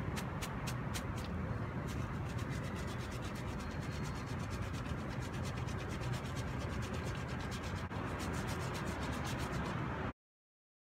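Powdered gym chalk being worked through a fine wire-mesh sieve over a metal bowl: a steady gritty rubbing. Rapid regular ticks come about five a second at the start and again near the end, and the sound cuts off suddenly about ten seconds in.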